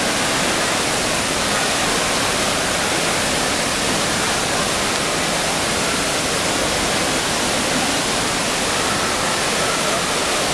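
Steady rushing noise of an indoor swimming-pool hall, even and unbroken throughout.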